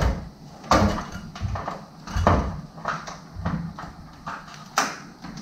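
Metal wiring/ballast cover of a fluorescent strip light fixture being squeezed and pulled loose from its channel: a run of clicks and knocks with scraping between them, the sharpest about a second in and again near the end.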